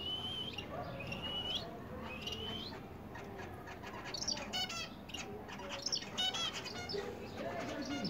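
Zebra finches calling and singing: three thin whistled notes in the first three seconds, then two short runs of rapid buzzy song notes about four and six seconds in.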